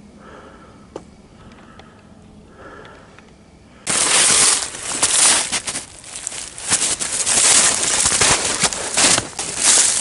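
Boots crunching fast through snow, dry leaves and twiggy brush, starting suddenly about four seconds in: a loud, dense crackle full of sharp snaps.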